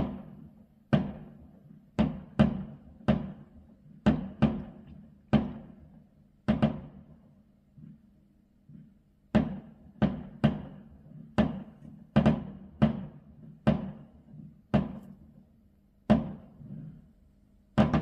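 Fireworks display: about twenty sharp bangs from aerial shells bursting overhead, each echoing away, in an irregular rapid series with a pause of about two seconds just after the middle. It is heard from indoors.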